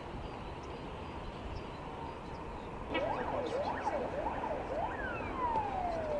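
Emergency vehicle siren cutting in about three seconds in, over steady background noise. It gives about five quick rising-and-falling wails, then a single long tone falling in pitch as it winds down.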